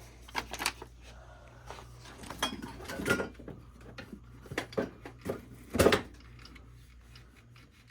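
Scattered metal clinks and knocks from handling and inspecting a valve-grinding machine, with the loudest knock about six seconds in, over a steady low hum.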